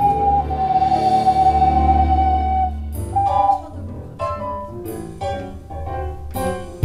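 An ocarina ensemble playing a melody in unison: one long held note for about the first two and a half seconds, then a run of shorter notes, over a lower accompaniment.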